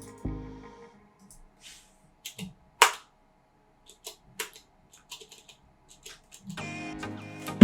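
Scattered computer keyboard and mouse clicks with quiet gaps between them, one sharper click about three seconds in. Distorted electric guitar music dies away in the first second and comes back near the end.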